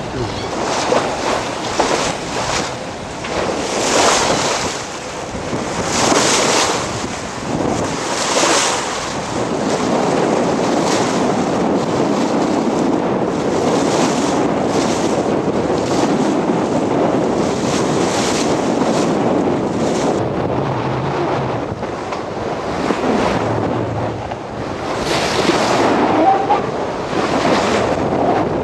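Wind rushing over the microphone and choppy water sloshing. Louder surges come about every two seconds in the first ten seconds and again near the end.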